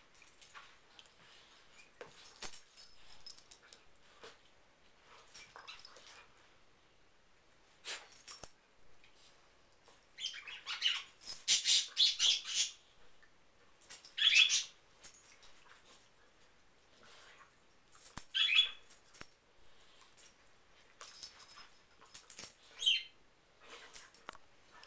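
Two dogs play-fighting with their mouths, making short high-pitched vocal noises in several separate bursts, the loudest about halfway through, with quieter scuffling between them.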